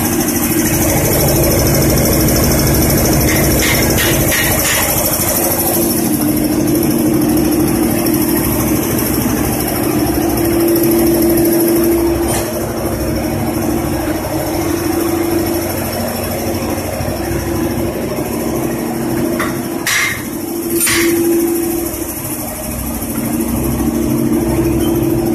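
Engine running steadily at a constant speed, with two short sharp clicks about a second apart near the end.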